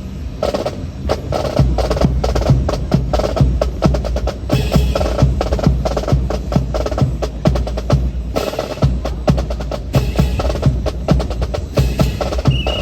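Drill rifles being slapped, spun and caught by an honor guard team, a rapid, dense clatter of wooden clacks and knocks with stamping boots, pausing briefly about two-thirds of the way in.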